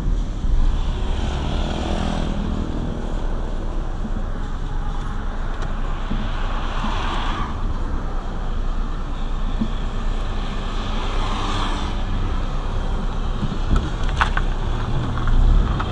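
Car engine and road noise heard from inside the cabin of a moving car: a steady low rumble, with the noise of other traffic swelling twice as vehicles go by. A few short clicks near the end.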